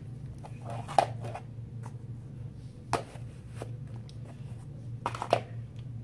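Hands handling toys in a tray of kinetic sand: a few light taps and knocks, about a second in, near three seconds and again around five seconds, over a steady low hum.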